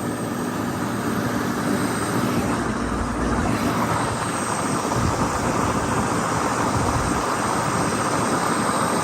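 Sonalika RX 60 tractor's diesel engine running steadily while the tractor is driven, a dense continuous rumble that grows a little louder near the end.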